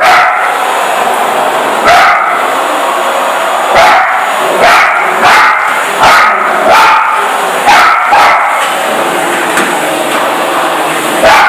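Parson Russell Terrier barking over and over at a running vacuum cleaner: about ten barks, half a second to two seconds apart, over the cleaner's steady motor noise.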